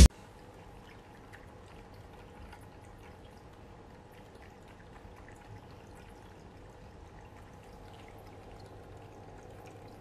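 Quiet, steady trickle of water from an electric pet drinking fountain, with a faint steady hum from its pump.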